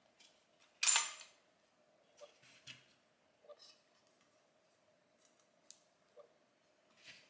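Small clicks and rattles of metal and plastic headlight parts as a projector unit is handled and lifted out of its housing, with one sharp click about a second in, the loudest, and a few fainter clicks after.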